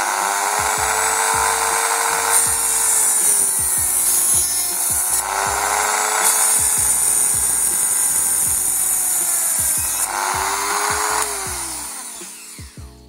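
Small handheld power tool cutting through the hard plastic of a car dashboard air vent. Its motor whine sags and recovers as it bites, then drops and winds down near the end.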